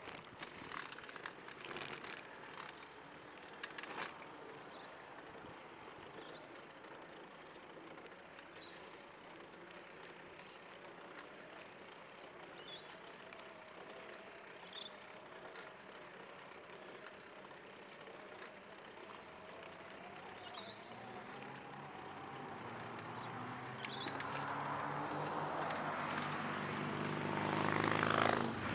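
Tyres and drivetrain of a tadpole recumbent trike rolling steadily over a concrete path, with a few sharp knocks over bumps and joints in the first few seconds. Near the end a motor vehicle's engine on the adjacent road grows steadily louder, peaking just before the end.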